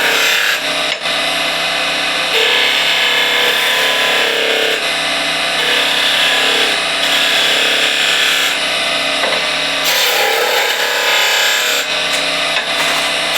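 Turning tool cutting wood on a spinning spindle blank on a Harvey Turbo T-40 lathe: a loud, continuous rough scraping that swells and eases with each pass every second or two. The tools are dull, so they scrape rather than slice cleanly.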